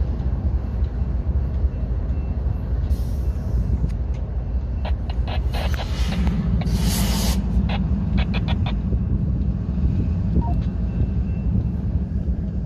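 Lead GE diesel locomotives (an ES44AC and an AC4400CW) of a freight train running as the train approaches at slow speed, a steady low rumble that grows fuller about six seconds in. Two short hisses and a quick run of sharp clicks come in the middle.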